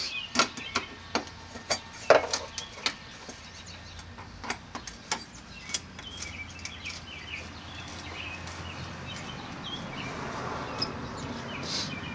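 Sharp metal clicks and taps of a screwdriver prying up a sheet-metal fuel-tank access cover in a car's floor pan, about ten knocks in the first half. Near the end comes a steadier scraping rustle as the cover works loose.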